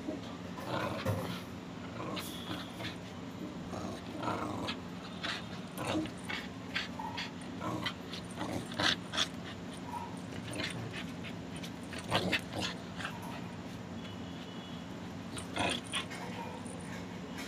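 Pit bull puppy growling and scuffling as it bites and tugs at a belt, with many short sharp clicks and knocks throughout.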